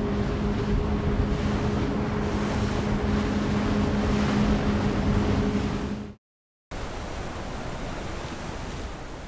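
Cruisers Sport Series 259 powerboat with its Volvo Penta V8 running at speed: a steady engine drone over the rush of water and wind. It cuts off about six seconds in. After a brief gap a steady rushing noise without the engine tone follows.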